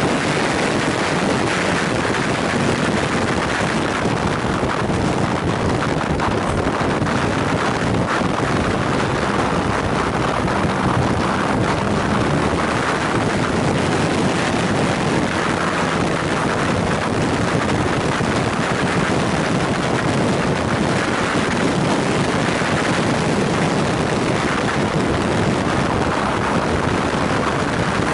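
Steady wind rush on a motorcycle-mounted microphone at road speed, with the BMW R nineT's boxer-twin engine running underneath at an even pace.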